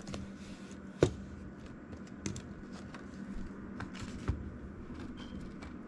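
Hands handling a budget planner binder on a desk: a few soft clicks and taps, the sharpest about a second in, over a steady low hum.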